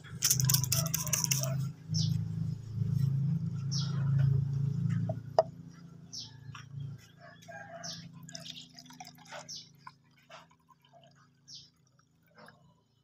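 Crackly rustling of a thin plastic bottle and coconut coir being handled over a low rumble. It quietens after about five seconds into water trickling from a plastic bottle into the cut bottle, with short bird chirps.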